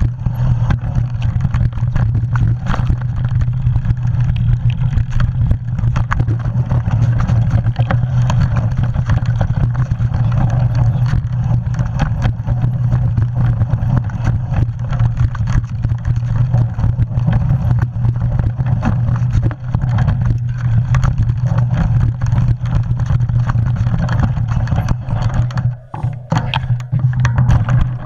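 Mountain bike riding noise at speed: wind buffeting the camera's microphone over the roll of knobby tyres on a dirt trail, with frequent clicks and rattles of the bike over bumps.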